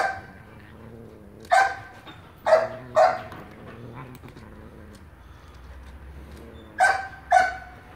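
A dog barking six short times, mostly in quick pairs with pauses between.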